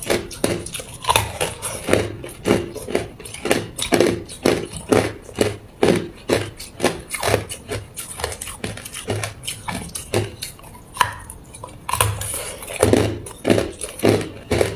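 Hard white ice being bitten and crunched close to the microphone: a quick, uneven run of sharp crunches, a few each second, with a brief pause about two-thirds of the way in.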